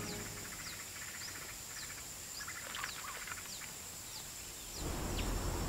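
Rainforest ambience: a steady high-pitched insect drone, with short falling chirps repeating about every half second and a pulsing trill in the first few seconds. Low background noise comes up near the end.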